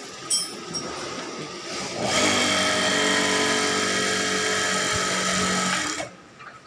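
Jack JK 609S large-hook industrial sewing machine stitching at a steady high speed for about four seconds, then stopping suddenly. A few light clicks come before it starts.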